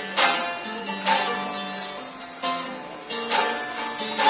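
Bağlama (Turkish long-necked saz lute) strummed in a folk tune: a sharp strum about every second, with the strings ringing on between strokes.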